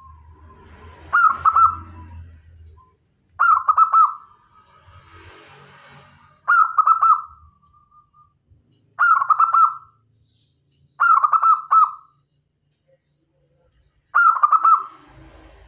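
Zebra dove (perkutut) cooing: six short phrases of rapid staccato coo notes, each under a second, repeated about every two to three seconds.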